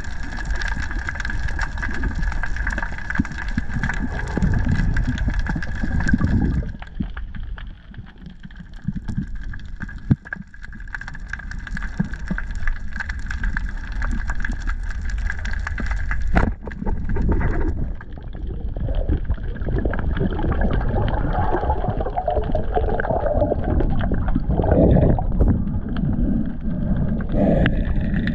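Underwater noise picked up through a diving camera's housing: a low rumble of water and movement with a steady thin high whine, dropping quieter for a few seconds early on the way, then bubbling in the later part.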